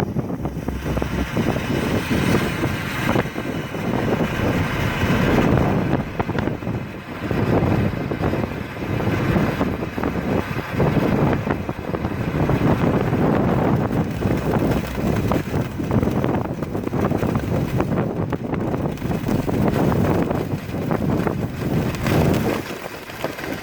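Wind gusting hard on the microphone over the steady hiss of a handheld firework fountain burning and spraying sparks.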